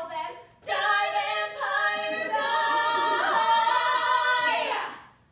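Two women's voices singing a show-tune phrase, which ends in a long held note that fades out near the end.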